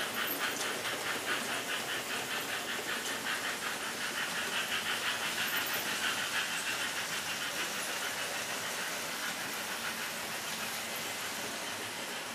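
HO-scale model train running on the layout's track: a rapid, even clicking of wheels over the rail joints. The clicking fades after about seven seconds and leaves a steady running noise.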